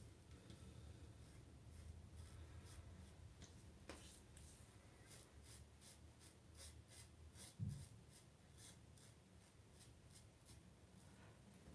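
Safety razor scraping through lathered stubble on the neck in short, repeated strokes, faint. A brief low thump about two-thirds of the way through.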